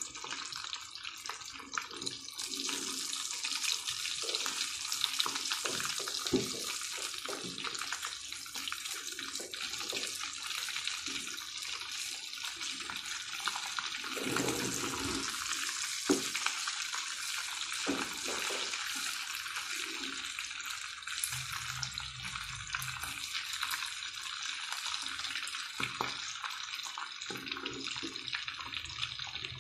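Breadcrumb-coated chicken lollipops frying in hot oil in a pan, a steady sizzle throughout, with a few short knocks of a slotted spoon against the pan.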